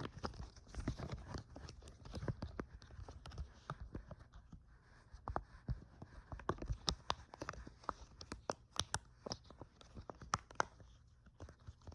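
Fast, irregular ASMR tapping and scratching close to the microphone: a dense run of sharp clicks and taps, several a second, with no voice.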